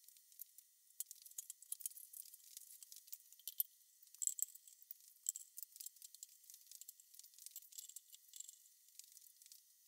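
Faint, irregular metallic clicks, clinks and rattles of bar clamps being handled and tightened onto a freshly glued laminated benchtop. The sound is thin, with no low end.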